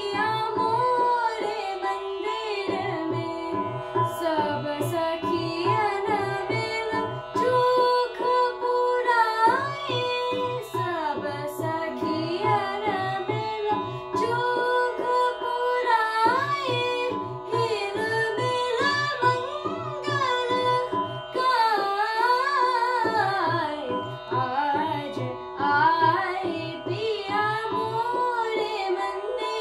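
A girl singing an Indian classical raga in slow, gliding, ornamented phrases. Under her voice run a steady tanpura drone and a repeating tabla rhythm from electronic tanpura and tabla boxes; the drum pattern drops out briefly a few times.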